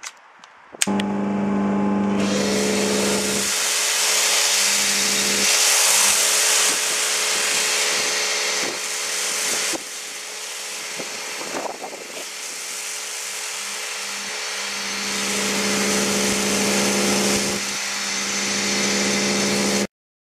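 Britclean Goldstar hot water pressure washer's electric motor and triplex plunger pump running with a steady hum, with the hiss of a foam lance spraying thick foam. The hum starts suddenly about a second in, the spray hiss joins a second later, and both cut off abruptly just before the end.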